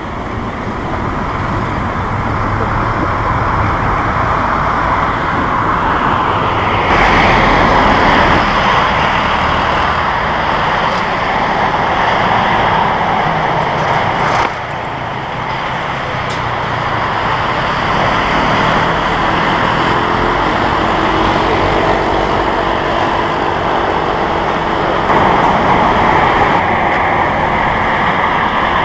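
Jet engines of a Boeing 747-8F freighter (four GEnx engines) running as it rolls and taxis after landing: a steady rushing jet noise that drops suddenly about halfway through and builds back up.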